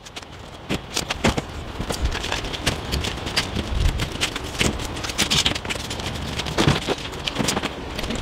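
Irregular clicks, knocks and rattles of a window's glass panels and frame being handled and taken out, over a steady hiss.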